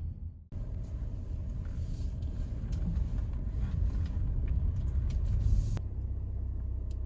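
Low, steady vehicle rumble, with a few faint clicks.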